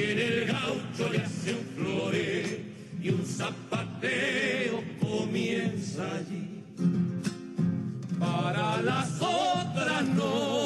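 Argentine folk song: voices singing together, their pitch wavering in a slow vibrato, over a steady instrumental accompaniment.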